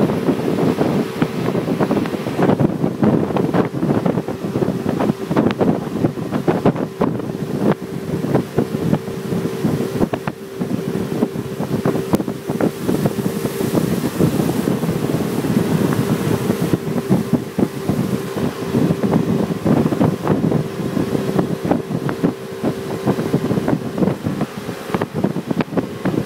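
Jet boat running fast on a river: heavy wind buffeting the microphone over the boat's steady engine drone and rushing water. The drone drops away a couple of seconds before the end.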